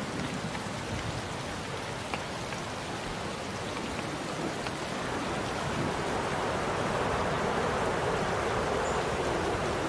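Steady rain falling, with a few scattered drop ticks. About halfway through, the hiss grows fuller and slightly louder.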